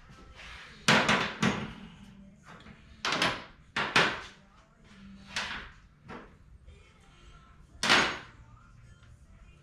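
A series of sharp knocks and bangs, about seven in all at uneven spacing, the loudest about a second in and near the end.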